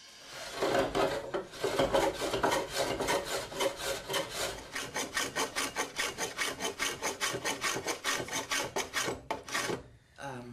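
Small hand plane shaving the edge of a wooden plank in quick, rapid strokes, about four or five a second, stopping shortly before the end.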